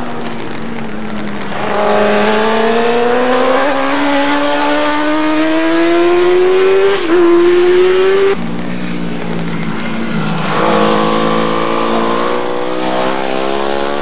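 Superbike racing motorcycle engine accelerating hard, its pitch climbing steadily for several seconds with a brief dip, then cutting off suddenly about eight seconds in. Another bike's engine follows at a lower pitch and rises again near the end.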